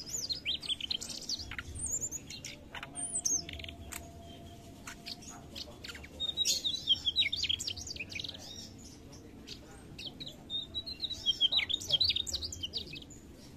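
Mugimaki flycatcher singing: three bouts of rapid, high, twittering phrases, with short pauses between them.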